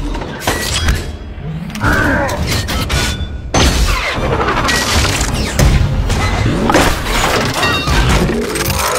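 Blockbuster film sound mix of giant robots transforming: layered mechanical transformation effects with metallic clanks, booms, crashes and shattering glass over dramatic orchestral score. There is a brief lull about a second in, then a loud, dense stretch from about three and a half seconds in.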